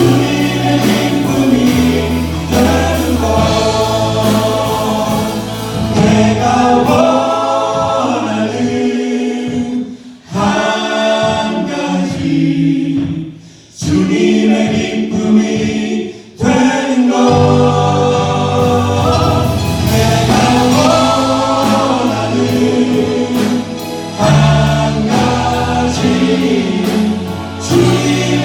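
Church praise team singing a worship song together over sustained low bass notes, with the music thinning out briefly twice around the middle.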